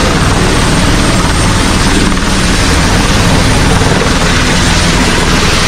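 Tour helicopter lifting off a helipad close by: loud, steady rotor and turbine noise as it hovers and climbs away.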